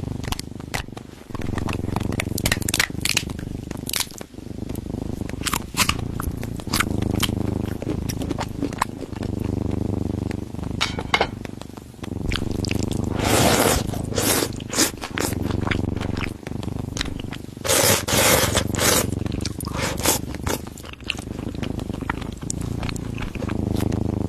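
Cat eating, with chewing and crunching clicks over a low purr that comes and goes in stretches of a second or two. Two louder, rougher bursts of chewing come about halfway through and again a few seconds later.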